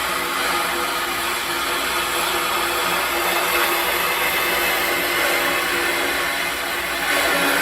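Hyper Tough 20-volt cordless drill running with a sanding disc attachment, grinding against the edge of a wooden tabletop piece: a steady motor whine over the scratch of sandpaper on wood.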